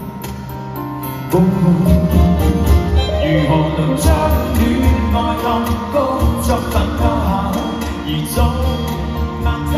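Live concert band music heard from the audience in an arena: a pop song with acoustic guitar over a steady pulsing bass, the band getting louder about a second and a half in.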